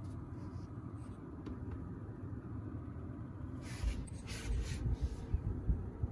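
be quiet! Dark Power Pro 12 1500 W power supply clicking irregularly, like a relay opening and closing, over a steady low hum; a run of louder clicks comes about four seconds in. The owner doubts that clicking this often is normal.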